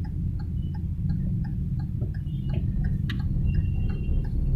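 Car cabin with steady low road and engine rumble, and a turn-signal indicator ticking evenly about three times a second.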